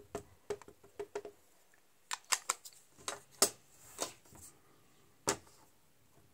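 Small taps and plastic clicks as an ink pad is dabbed onto a rubber stamp and handled, followed by one sharper clack about five seconds in as the stamping platform's clear lid comes down.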